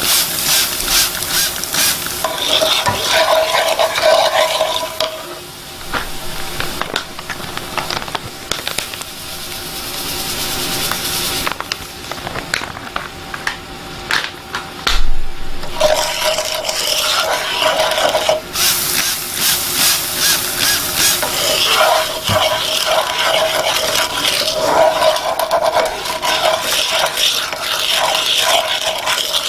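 A utensil stirring and scraping a pan of fig chutney as it cooks, in quick repeated strokes. The stirring eases off for a few seconds around the middle, then there is a knock and it picks up again.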